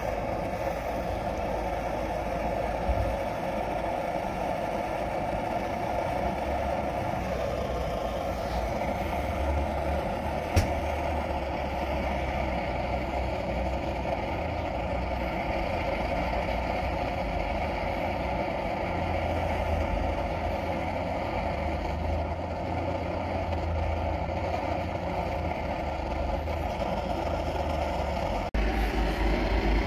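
Tomshoo multifuel stove's pressurized burner burning 95% alcohol fed from a hand-pumped fuel bottle, with a steady even roar of the flame. A low rumble underneath grows louder near the end, and there is one sharp click about ten seconds in.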